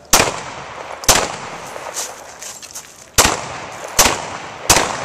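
Glock 17 9mm pistol firing a string of shots, roughly a second apart, with a pause of about two seconds after the first pair and a softer report in that gap. Each shot is a sharp crack with a short echo.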